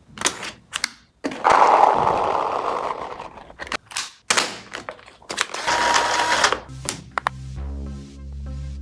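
Toy gel blaster clicking as it is handled and fired, with two longer hissing bursts, the first fading over about two seconds. Electronic music with a steady beat starts near the end.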